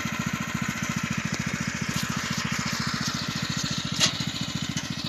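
Engine of a two-wheel walking tractor hitched to a trailer, running steadily with a rapid, even chugging. A single sharp knock about four seconds in.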